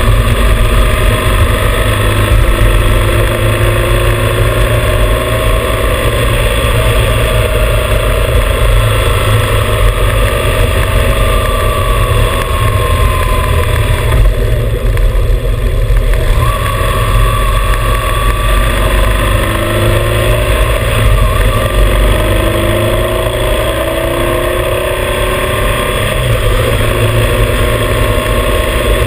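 Motorcycle running at road speed, heard from a camera beside its front fender, with heavy wind rumble on the microphone. The engine note drifts up and down slowly as the speed changes.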